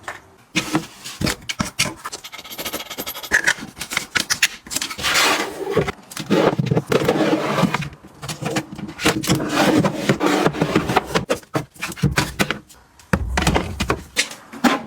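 Objects being handled and set down by hand: a quick run of clicks and taps mixed with scraping and rubbing.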